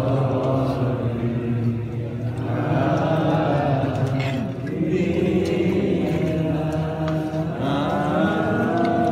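A group of men chanting together in long, drawn-out phrases.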